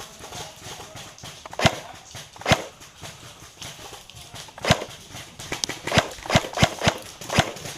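Airsoft guns firing single shots: about ten sharp cracks at uneven intervals, a few spread out in the first half, then coming faster, several under half a second apart.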